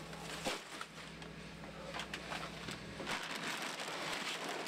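Plastic-wrapped cases of bottled water and plastic bags being handled, giving a few knocks and crinkling. The rustling grows louder after about three seconds.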